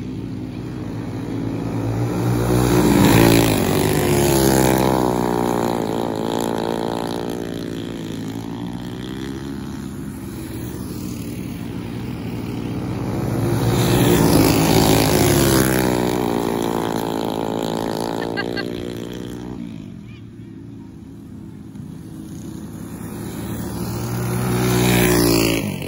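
Go-kart engines running hard on a dirt oval. The sound swells three times as karts come past about every eleven seconds, the pitch falling and rising as they lift and accelerate through the turns. Near the end a kart's drive chain breaks and the engine sound drops away abruptly.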